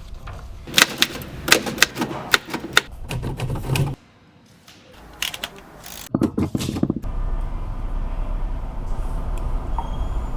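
Typewriter keys striking in quick, irregular clacks, in two spells with a brief pause between them, followed by a steady low hum.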